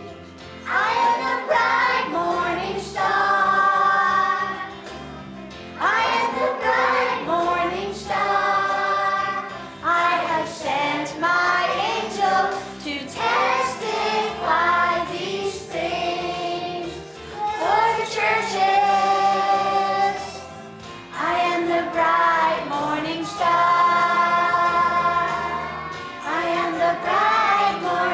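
A group of young children singing a song together as a choir, in sung phrases with brief pauses between them.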